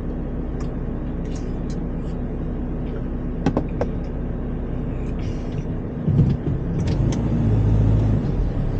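Steady low rumble of a van's engine and road noise heard inside its cab while driving, with a couple of light clicks about halfway through and the rumble swelling louder near the end.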